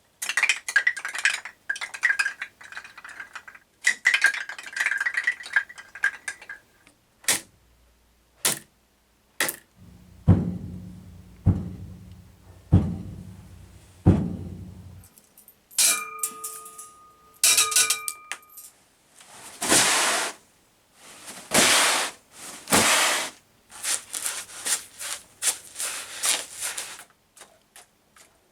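A run of homemade Foley sound effects made with assorted objects. It begins with clinking and rattling, then single sharp clicks and a series of about five low thuds. Ringing tones follow, then several long rushing swells, and dense crackling near the end.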